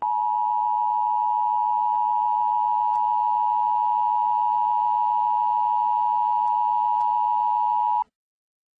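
Emergency Alert System attention signal: a steady two-tone alarm held for about eight seconds, then cutting off abruptly. It signals that an emergency announcement follows.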